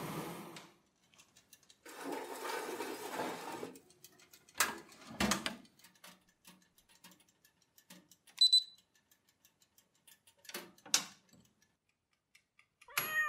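Air hiss from powder-coat spraying in two short spells. Then scattered clicks and knocks, and a short high electronic beep about eight seconds in. A cat meows right at the end.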